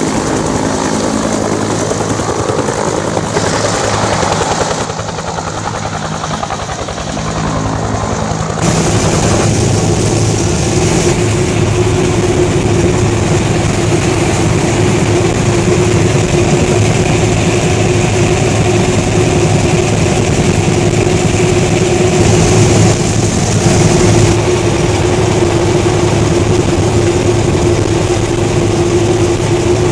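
UH-1 Huey helicopter lifting off and flying away, its rotor and engine sound easing off about five seconds in. About nine seconds in the sound changes abruptly to inside the helicopter in flight: the engine and rotor run in a loud, steady drone with a constant hum.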